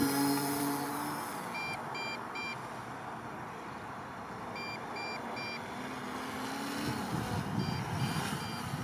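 Brushless motors of an MJX Bugs 2 quadcopter whining in flight, their pitch rising about six seconds in. Groups of three short high beeps sound about every three seconds.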